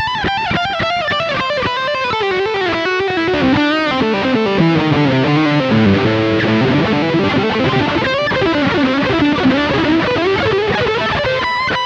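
Tokai ALS62 Gold Top Les Paul-style electric guitar played through an overdriven amp tone. A fast single-note lead line runs down the neck over about six seconds, climbs back up, and ends on a held note with vibrato.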